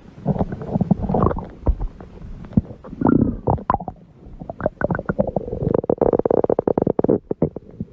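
Human stomach growling: irregular gurgles and squelches, then, about halfway through, a fast rattling run of gurgles lasting a couple of seconds.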